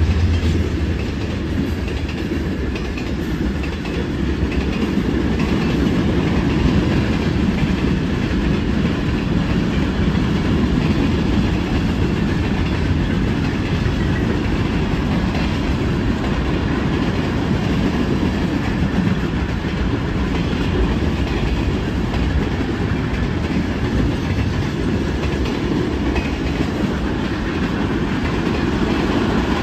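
Freight train cars rolling past at a decent speed: steel wheels on the rails make a steady rumble.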